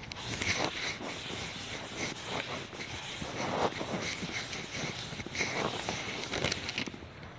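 A cloth duster wiping chalk off a chalkboard in repeated rubbing strokes.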